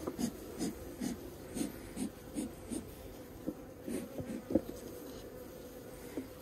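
Honeybees humming steadily around an open hive. Over the hum, a run of short, soft sounds comes about two or three times a second and fades out about two-thirds of the way through.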